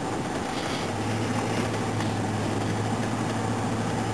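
Steady engine and road noise inside a moving patrol car's cabin, with a low steady hum that comes in about a second in.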